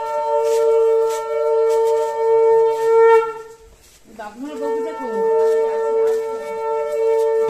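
Conch shell (shankha) blown in long, steady blasts. One blast ends about three and a half seconds in, and after a short pause a second blast starts just past four seconds and holds.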